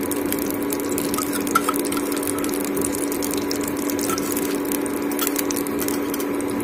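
Ghee melting in a hot kadhai, with faint crackling and a spoon stirring it around the pan, over a steady hum.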